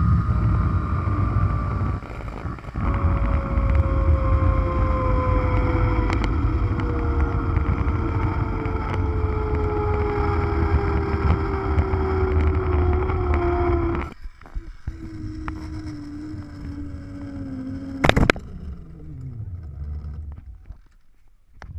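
Zipline trolley pulleys rolling along the steel cable: a whine that slowly falls in pitch as the rider slows, over heavy wind rumble on the camera microphone. About 18 seconds in there is one sharp clank, after which the whine falls away quickly as the trolley comes to a stop at the landing.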